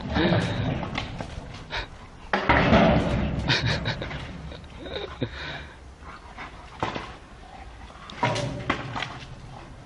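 A long stick held crosswise in a German shepherd's mouth knocking and scraping against a metal gate, several knocks, as it catches on the posts because it is wider than the opening.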